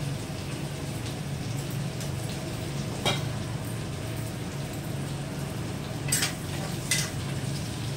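Green chillies and garlic frying gently in oil in a steel kadai on a gas burner, a steady sizzle under a low hum. A metal slotted spoon clinks against the pan about three seconds in and twice more near the end as the chillies are stirred.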